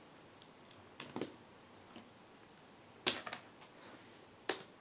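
A few sharp clicks and knocks against a low background: a pair about a second in, the loudest about three seconds in, and one more near the end.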